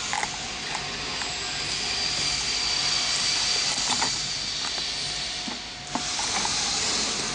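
DCZ70 oscillating-knife flatbed cutting machine running, a steady hiss with a faint high whine that is louder through the middle, and a few light clicks.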